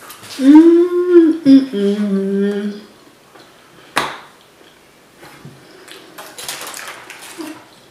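A woman's closed-mouth hum, two notes: the first arching and held, the second lower and held, as a reaction while tasting food. About four seconds in comes a single sharp click, then soft rustling.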